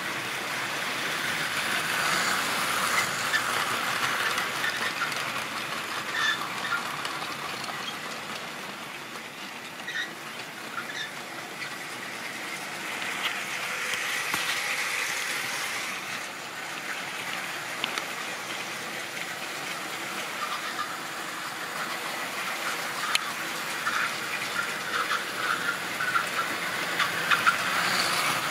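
Model railway trains running on the track: a steady rolling rattle of locomotives and wagons with small clicks of wheels over rail joints. It swells and fades as the trains pass, with a denser run of clicks near the end.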